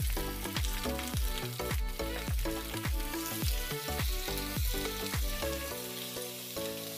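Chicken, kohlrabi and potato pieces sizzling in hot mustard oil in a karahi as a spatula stirs them. Background music with a steady beat plays over it, and the beat drops out near the end.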